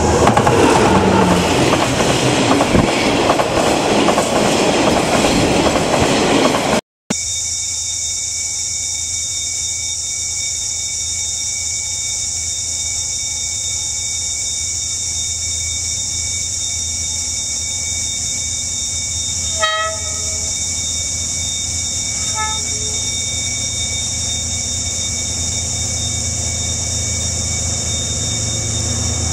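D19E diesel-electric locomotive hauling a freight train, loud and close. After a cut, the steady engine drone of another D19E locomotive approaching with its train, with two short horn toots about two-thirds of the way through.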